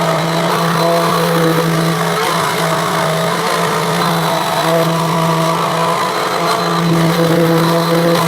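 Random orbit sander running with a steady hum, its abrasive pad working over the hardened 2K lacquer finish of an Epiphone SG body.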